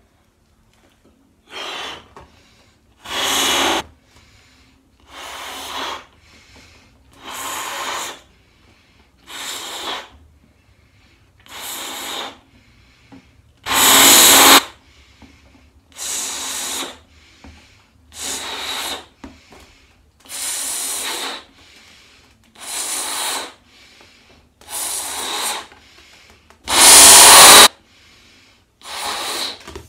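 A person blowing up a balloon: a long series of breaths puffed into it, about one every two seconds, each a rush of air lasting under a second. Two of the puffs, near the middle and near the end, are much louder than the rest.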